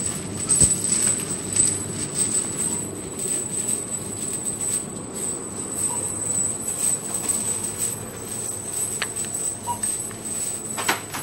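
Heavy steel link chains draped around a man's neck clinking and rattling as he walks.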